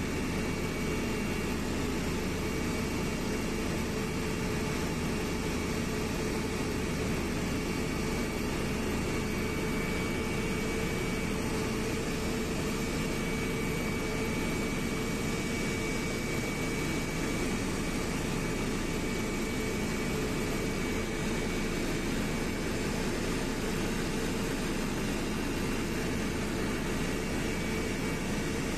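Passenger airliner's engines and airflow heard inside the cabin in flight: a steady rushing drone with a constant hum and a faint high whine.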